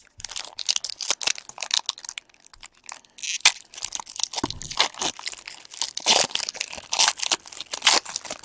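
Foil wrapper of a baseball card pack being torn open and crinkled by hand: a dense run of crackling and tearing, louder from about three seconds in.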